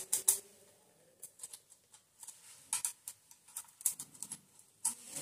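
Light metallic clicks and ticks of a screwdriver working the timing chain on the camshaft sprocket of a Hero Honda HF Deluxe motorcycle engine, scattered and irregular, with the loudest clicks at the start and near the end.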